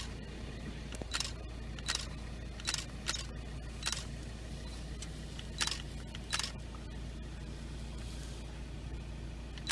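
Camera shutter clicking: single shots at irregular intervals about a second apart, then a pause of a few seconds near the end. A steady low hum runs underneath.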